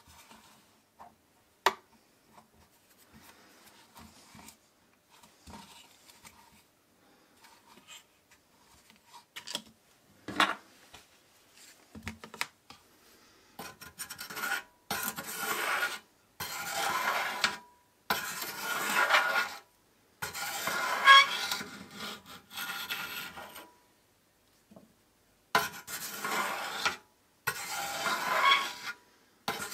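Steel spoon scraping around the inside of a metal melting pot, stirring and skimming melting lead-free white metal, in repeated rasping strokes with short pauses. These strokes fill the second half. Before them come faint scratching and a couple of sharp clicks as a silicone mold is worked by hand with a small tool.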